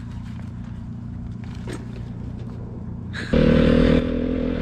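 A steady low engine hum with a few light clicks, then about three seconds in a dirt bike's engine cuts in loud, running as the bike rides across sand.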